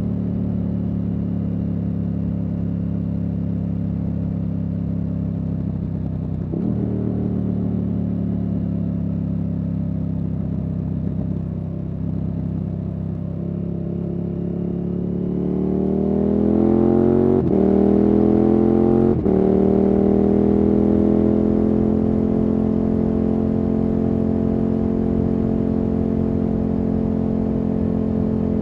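KTM 1290 Super Adventure S V-twin engine running through a Wings aftermarket exhaust, pulling steadily at first. About halfway through it accelerates hard, with the pitch climbing, then falls back sharply at two quick upshifts. It then settles into a steady, higher note.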